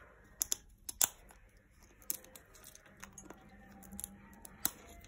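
Green-winged macaw cracking and chewing walnut with its beak: a series of sharp cracks and crunches, loudest about a second in.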